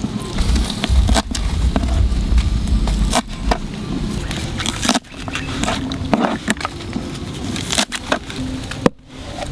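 Small kitchen knife cutting a tomato, then chopping green herb stalks on a wooden board: a run of sharp irregular taps of the blade against the wood. A low rumble sits under the first few seconds.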